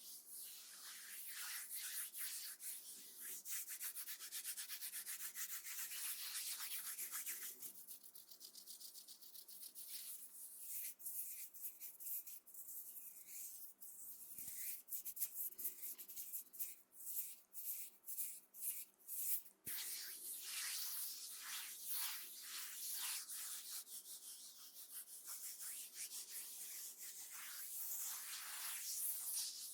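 Brush bristles rubbing over a microphone: hissy scratching in quick, repeated strokes, slowing to separate strokes with short gaps in the middle before quickening again.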